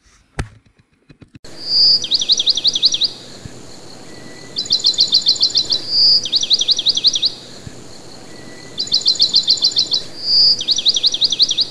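Bird song: a short whistled note followed by a fast, rattling run of sweeping high notes, repeated over and over every couple of seconds over an outdoor background.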